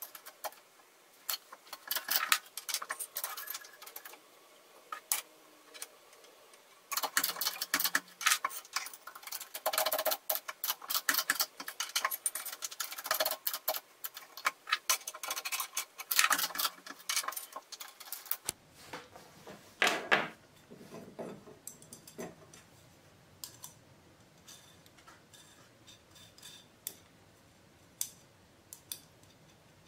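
Dense, irregular clicking and ticking as a steel strip is bent in a homemade press brake, its hydraulic bottle jack pumped by hand. After about 18 seconds this gives way to a few clinks of small metal parts: bolts and a bearing handled over a plastic parts box.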